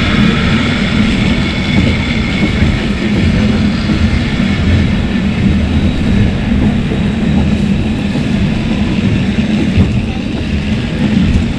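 Steady low rumble of the Lynton and Lynmouth Cliff Railway's water-balanced funicular car running along its track.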